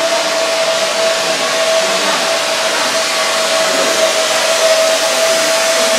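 Steady, loud rushing hiss of a blower, with a constant mid-pitched hum held under it and no change in speed.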